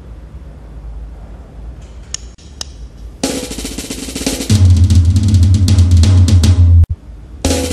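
Drum kit played fast and loud: a rapid, crowded roll of drum and cymbal strikes starts about three seconds in, after a few light clicks. A deep steady boom sits under the strikes from the middle. The drumming breaks off abruptly near the end and starts again at once.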